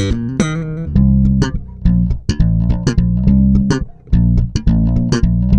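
Music with a prominent bass guitar line over a steady beat.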